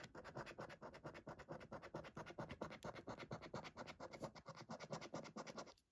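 A coin scratching the scratch-off coating from a paper scratchcard in quick, even strokes, faint, stopping just before the end.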